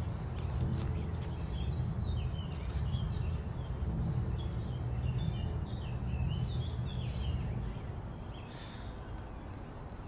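Many quick bird chirps and twitters over a steady low rumble. The rumble eases off about eight seconds in.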